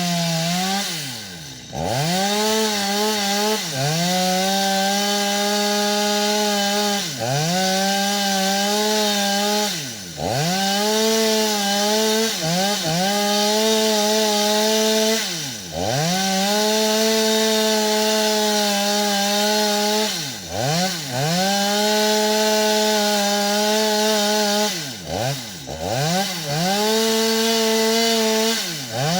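Two-stroke chainsaw cutting wood, running at high revs; the throttle is let off and squeezed again about ten times, each time a quick drop in pitch and back up.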